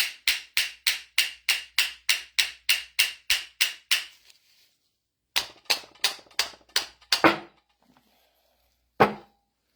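Quick, even hammer taps on a mini excavator's hydraulic pump, about four a second, to drive one half of the pump housing out. After a short pause come a few more taps and a harder knock, then a single tap near the end.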